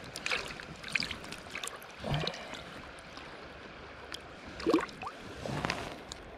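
Shallow river water splashing and sloshing as hands move a salmon about in it: a few irregular splashes, the loudest about three-quarters of the way through, over a steady hiss of flowing water.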